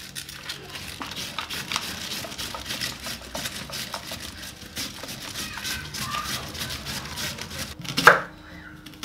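Cabbage being shredded on a hand grater: a long run of quick rasping strokes. Near the end a single loud knock of a knife chopping through an onion onto a plastic cutting board.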